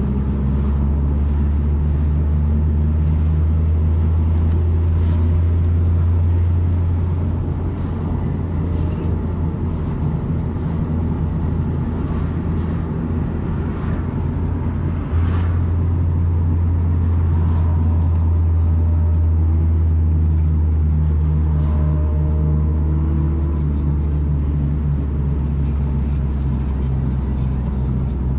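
Car cabin noise while driving: a steady low engine and road drone inside the car, with light clicks here and there and one sharper knock about fifteen seconds in.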